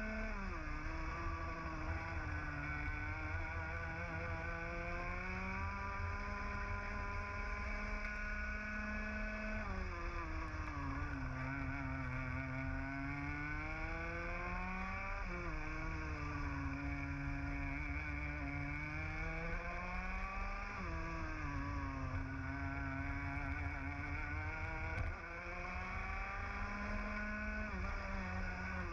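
Onboard sound of a 125cc two-stroke TAG kart engine at race pace. The revs drop sharply about a second in, then climb steadily for about nine seconds along a straight. After that they fall and rise again three times as the throttle is lifted and reapplied, over a low rush of wind.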